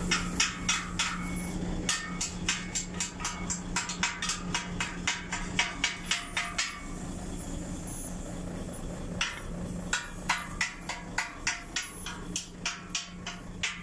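Hammer striking the steel bracket of a square-tube safety barrier frame in quick, ringing metallic taps, about four a second, with a pause of about two seconds midway, over a steady low hum.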